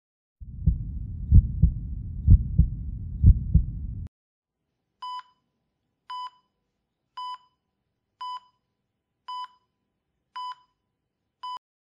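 A heartbeat, dull low thumps in lub-dub pairs a little under once a second, lasting about four seconds. After a short pause, a hospital heart monitor beeps steadily about once a second, seven identical beeps.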